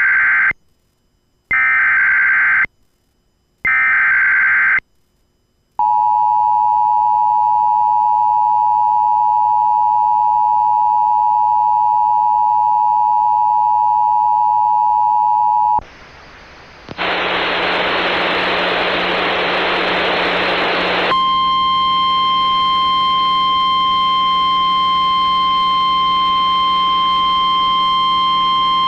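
Emergency Alert System activation from a Sage ENDEC 1822: three short bursts of SAME header data tones, then the steady two-tone EAS attention signal for about ten seconds. After a brief drop come a few seconds of radio static, and then a steady single tone starts, the NOAA Weather Radio warning alarm tone, relayed ahead of a severe thunderstorm warning.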